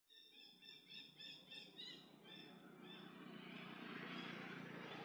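A bird chirping in a quick series of short, high notes, about five or six a second, for roughly two seconds, then a steady outdoor hiss over a faint low hum.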